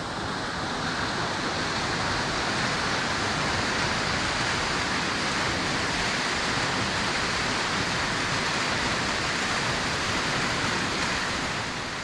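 A stepped waterfall pouring into a rock pool: a steady, even rush of falling water that cuts off abruptly at the end.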